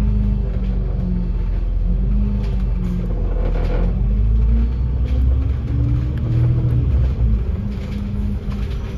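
Dennis Enviro500 MMC double-decker bus driving, its engine and road rumble low and steady, with the engine note climbing for a couple of seconds past the middle as it accelerates. Background music plays over it.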